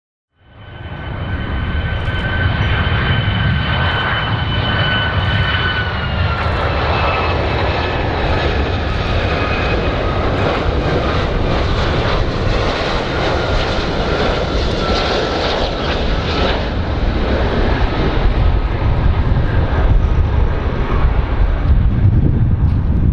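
Icelandair Boeing 757's turbofan engines on landing approach: a steady two-tone whine over a low rumble. The whine drops slightly in pitch about six seconds in and keeps sliding lower, and the rumble grows louder near the end.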